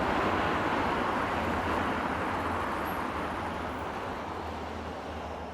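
Rumble of a passing train on the rails, fading steadily as it moves away.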